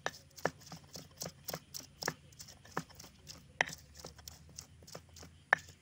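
Stone pestle pounding and crushing chilies, shallots and garlic in a stone mortar (Indonesian cobek and ulekan) for a spice paste. It makes irregular sharp knocks of stone on stone, about two a second, with the loudest knock near the end.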